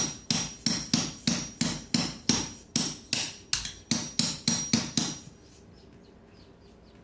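Baby bird trapped inside a wall cavity, making a rapid run of sharp, evenly spaced sounds, about three a second, that stop abruptly about five seconds in.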